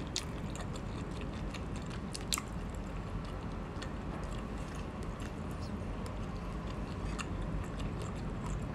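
A person chewing a mouthful of baby squid and rice, with small wet clicks scattered through and one louder click about two and a half seconds in, over a steady low hum.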